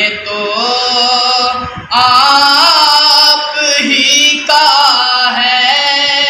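A man's unaccompanied voice reciting an Urdu naat, singing long melismatic held notes in about three phrases with short breaks between them.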